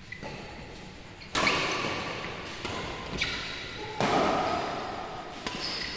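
Badminton rackets striking a shuttlecock in a rally: sharp hits a second or two apart, echoing in a large hall.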